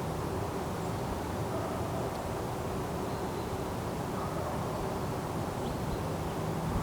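Forest ambience: a steady low rumble with a faint hum, and a few faint high chirps.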